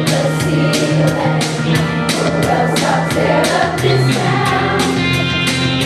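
Music with voices singing over a steady beat.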